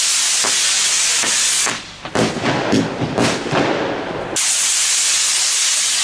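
Weco firework rockets going up: a loud rushing hiss of the rocket motors that stops abruptly, a stretch of irregular crackling and popping, then a second loud hiss near the end.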